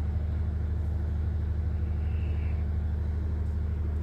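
An engine running steadily, a low, even rumble.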